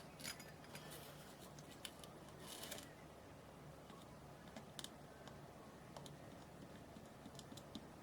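Faint scattered clicks and a short rustle of small parts and tools being handled at a workbench, over a low steady hum.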